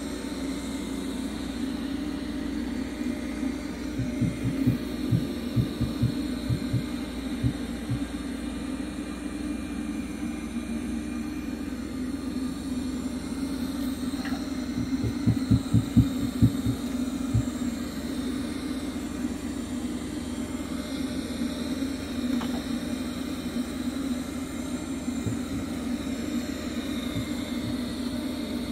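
Roborock Q Revo robot vacuum running on carpet, a steady motor and fan hum. Two clusters of short low thuds come through it, one about four seconds in and another about fifteen seconds in.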